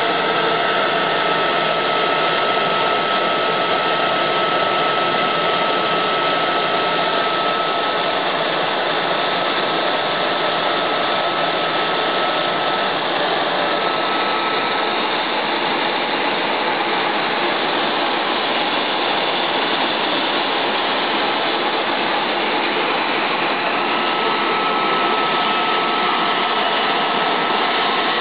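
Oil mist collector's blower running together with the steady hiss of a compressed-air spray gun blowing a heavy water mist into its intake. A thin whistle at one pitch sounds over the noise and drops out for a while in the middle.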